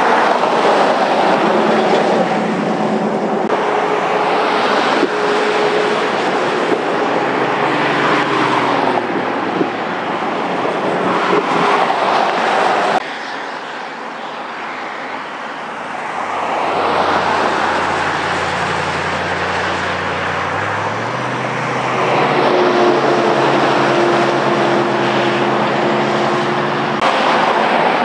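Freeway traffic and vehicle engines: a continuous road roar with steady engine hums that rise and fall as vehicles pass, dropping quieter about halfway through.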